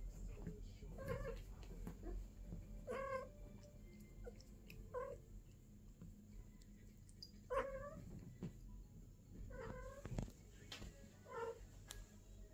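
A British cat gives about six short yowling calls, one every couple of seconds, during a mating encounter between a golden longhair and a silver shorthair.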